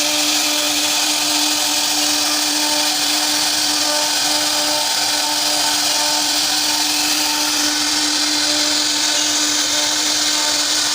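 CNC router spindle carving wood: a steady whine with a loud hiss of cutting over it, unchanging.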